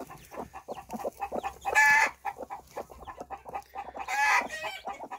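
Broody hen on her nest of newly hatched chicks clucking in a rapid run of short low clucks, with two louder, harsher calls about two seconds in and near the end. This is the protective grumbling of a sitting hen being disturbed on her nest.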